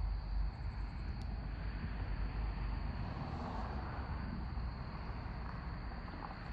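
Outdoor night ambience: a steady low rumble and hiss with a thin, steady high-pitched hum above it, and no distinct events.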